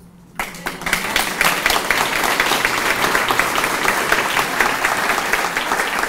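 Audience applauding: many hands clapping, starting about half a second in after a brief lull and going on steadily.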